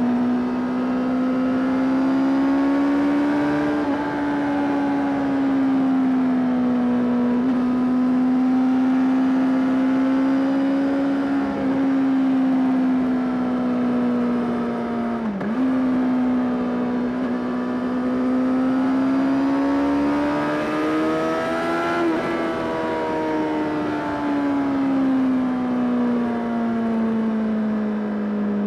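Honda CBR 600 RR (PC37) inline-four engine running under way at steady high revs, its pitch rising and falling slowly with the throttle. Brief dips in pitch come about four, twelve and fifteen seconds in, and the engine climbs to its highest note a little past twenty seconds before falling away gradually.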